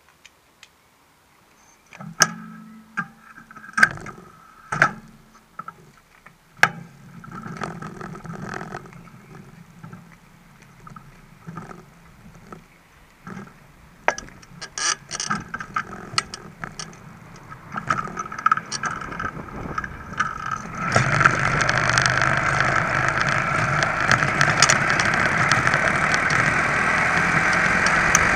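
Scattered clicks and rattles from the moped, then a little over two-thirds through the ABG VAP two-stroke clip-on moped engine starts running and keeps running steadily while the moped is ridden.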